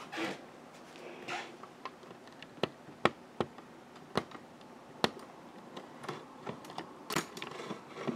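Sharp hard-plastic clicks and knocks, about a dozen at irregular intervals, with a little rustling, from a folding polypropylene cat carrier being handled as its panels are set up and snapped into place. The loudest clicks come about three and five seconds in.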